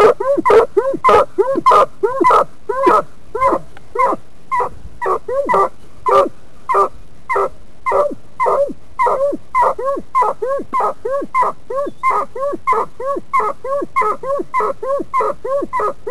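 Walker coonhound barking rapidly and without a break, about three short chop barks a second, each bark rising and falling in pitch.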